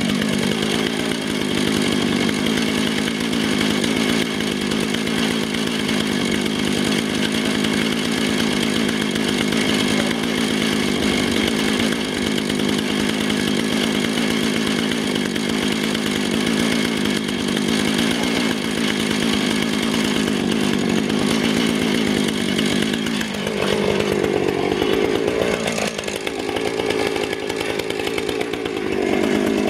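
Husqvarna Rancher 455 two-stroke chainsaw on a chainsaw mill, running at full throttle as it rips a hard sugar maple log lengthwise with a 24-inch bar and ripping chain. The engine note holds steady, then sags and wavers in pitch under the load about three-quarters of the way through, and picks back up near the end.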